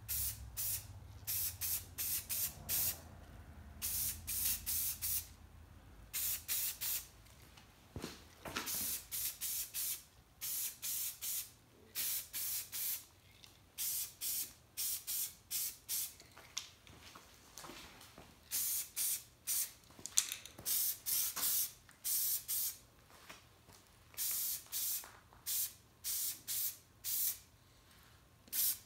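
Aerosol spray paint hissing out in many short bursts, each a fraction of a second long, in quick runs of three or four with short pauses between, as coats of paint go onto small metal parts.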